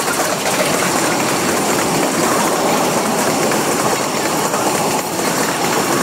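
Covered freight wagons of a long freight train rolling past close by, steel wheels running on the rails in a steady, unbroken rail noise.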